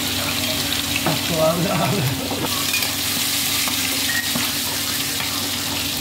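Chopped garlic and whole coriander seeds sizzling in hot oil in a non-stick kadai as a tadka, stirred with a slotted steel ladle. The sizzle is a steady hiss.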